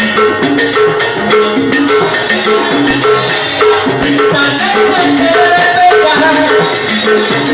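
Salsa band playing with a steady, busy percussion rhythm and repeating short instrumental notes.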